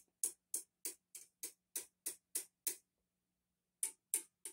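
A wooden chopstick tapping on the tubes of a running tube guitar amp head: a tap test for microphonic tubes or sockets. It goes about three taps a second for nearly three seconds, then pauses and gives four more, over a faint steady hum.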